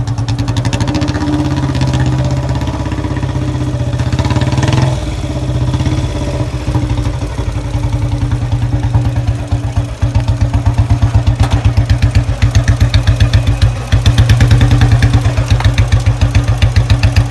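Royal Enfield Bullet Electra's single-cylinder engine running with a steady thumping beat, briefly rising in pitch about five seconds in, then cutting off abruptly at the end.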